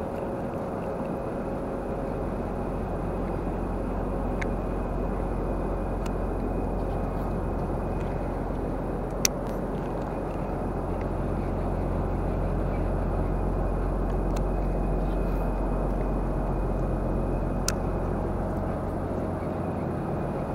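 Steady low machinery hum with a constant rumbling wash, holding one pitch throughout, with two sharp clicks, one about halfway through and one near the end.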